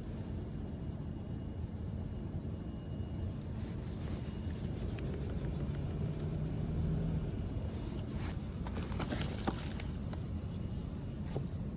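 Steady low outdoor rumble, with a short low hum from about five to seven seconds in and a few rustles and clicks a little later.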